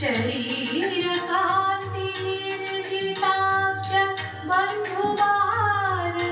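Indian devotional song: a high voice singing long, held and gliding notes over regular percussion strokes.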